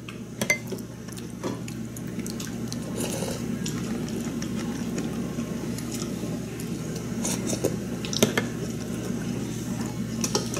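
Metal spoon clicking and scraping now and then against a ceramic bowl as fried rice with scrambled egg is eaten, over a steady low hum.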